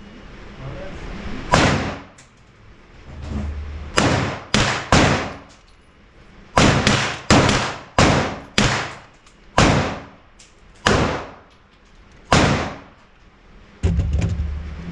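Gunshots at a shooting range: about a dozen sharp shots at irregular intervals, some in quick strings of two or three, each trailing off in a short echo.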